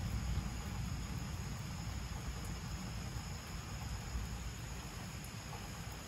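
Low rumble of distant thunder slowly fading away, with a steady high chirring of night insects underneath.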